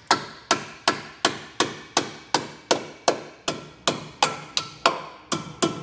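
A hammer lightly tapping the steel pinch weld on the front frame of a 2023 Chevrolet Equinox, about three even strikes a second, each with a short metallic ring. The flange is being knocked inward to give clearance for a tow bar base plate.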